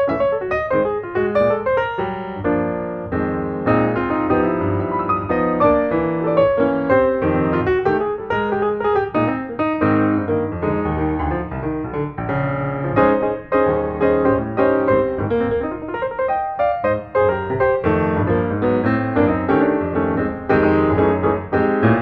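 Background piano music, a quick run of notes going on steadily without a break.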